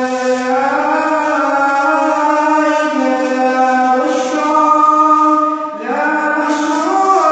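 A man reciting the Quran in a melodic chant, one voice holding long drawn-out notes that bend slowly in pitch. He breaks off briefly about six seconds in and starts a new phrase.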